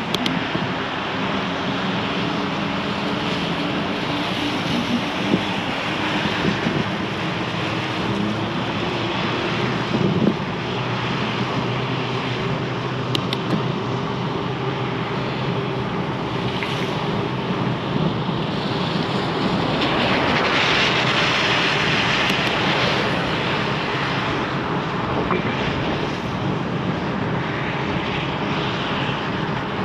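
Wind rushing over the microphone and tyre noise from an Aventon Adventure e-bike riding along, a steady rushing noise that swells a little about two-thirds of the way through.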